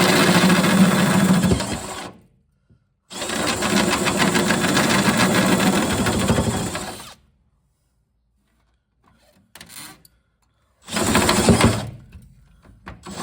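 Power drill with a step drill bit cutting a hole in the ute tub wall. It runs in three bursts: about two seconds at the start, a longer run of about four seconds, and a short one near the end.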